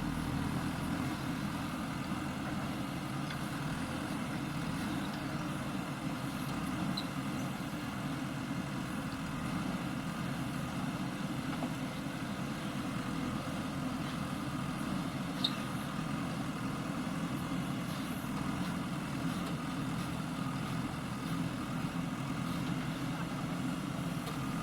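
JCB backhoe loader's diesel engine running steadily, a low even drone, with one brief click about fifteen seconds in.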